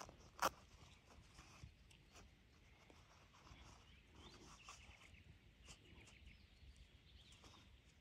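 Near silence: faint outdoor ambience, with one short sharp click about half a second in.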